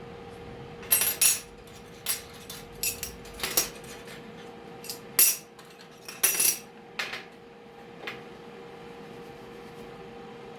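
Loose steel pieces being handled and set down, clinking and clanking against each other a dozen or so times at irregular intervals, with the sharpest knocks about a second in and again around five and six seconds in.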